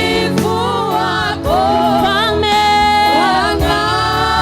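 Swahili gospel worship song: a lead singer and choir singing with sustained keyboard and bass backing.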